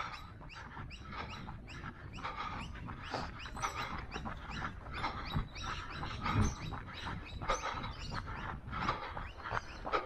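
A runner's footsteps crunching on a dirt-and-gravel trail at a steady stride of about three steps a second, over a low wind rumble on the microphone.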